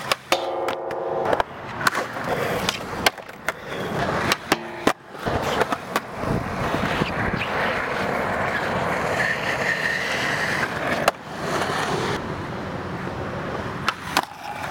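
Skateboard wheels rolling on concrete, broken by sharp clacks of the board popping and landing. Near the start there is a short ringing grind of the trucks on a metal flat bar.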